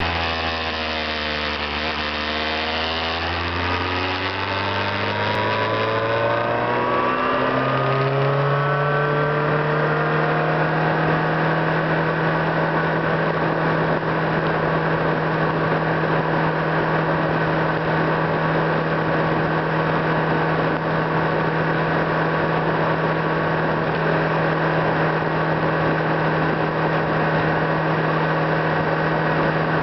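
Car engine and road noise from a moving car: the engine note drops briefly through a turn, rises steadily for several seconds as the car accelerates away, then settles into a steady drone while cruising.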